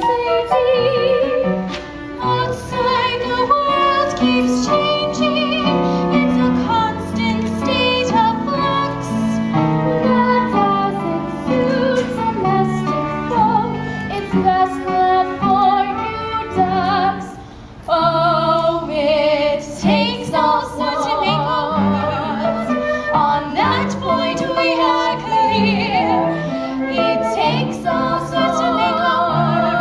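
Musical theatre song: singing with vibrato over an instrumental accompaniment, with a short lull about 17 seconds in before the singing resumes.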